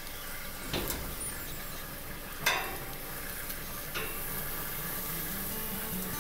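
Beef and vegetable kabobs sizzling steadily on hot grill grates, with three sharp clacks of metal tongs on the skewers and grate as the kabobs are turned; the loudest clack comes about two and a half seconds in.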